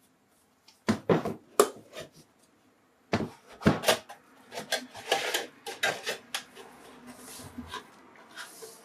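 A computer power supply's metal casing being pulled apart by hand: clattering knocks about a second in and again about three seconds in, then lighter clicks and scraping as the pieces are handled.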